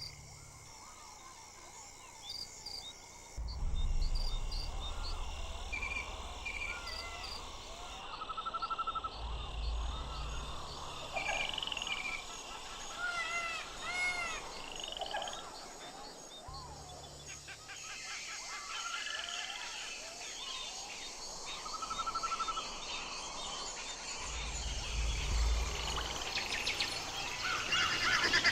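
Albatrosses calling at a colony: many short whistled calls, some rising and then falling, overlapping over a steady high hiss, with bouts of low rumble now and then.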